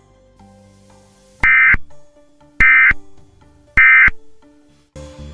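Emergency Alert System end-of-message code: three short, loud bursts of digital data tones, each about a third of a second long and about a second apart, marking the end of the alert.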